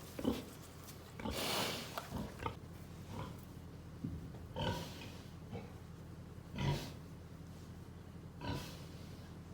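Pig grunting in a few short, separate calls a second or two apart, over a steady low hum.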